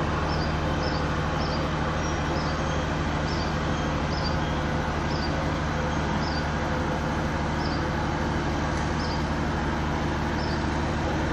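Steady low drone of running harbour machinery: a constant hum with several pitched tones that holds at an even level throughout. Faint high chirps recur about once a second.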